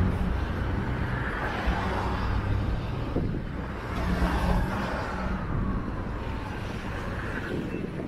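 City road traffic: cars and other vehicles driving by with a steady rumble of engines and tyres. A thin whine falls in pitch about five seconds in.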